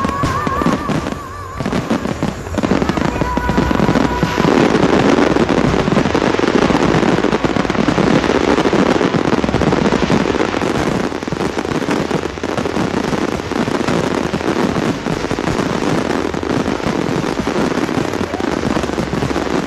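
Fireworks display: a dense, continuous barrage of bursts and crackling, heaviest a few seconds in, with a brief warbling whistle near the start.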